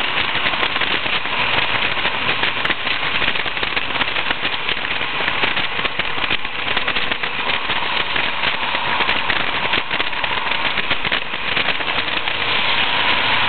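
Wind buffeting and crackling on the microphone in the open cockpit of a Westfield sports car at road speed, with the car's engine running faintly underneath.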